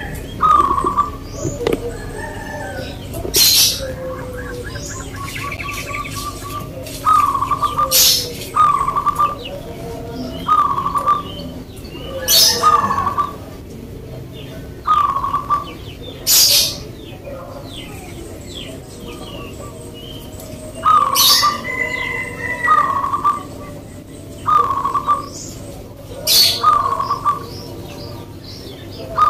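Zebra doves (perkutut) cooing: short phrases of soft rolling notes, some run into quick trills, repeated every second or two. Short, sharp, loud calls cut in about every four seconds.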